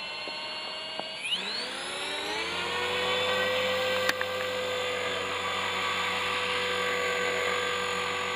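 Align T-rex 450 Pro electric RC helicopter spooling up: the motor and gear whine rises in pitch over about a second, then holds steady as the rotor reaches head speed.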